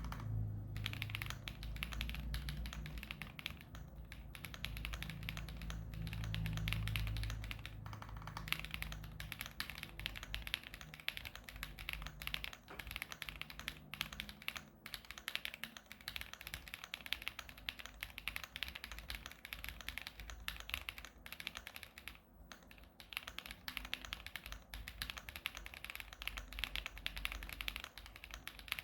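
Continuous, fast typing on a Zoom65 mechanical keyboard with lubed Dark Jade switches on a polycarbonate plate and flex-cut PCB, fitted with Modo Dark clone keycaps: a dense, uneven run of key strikes with short gaps between bursts.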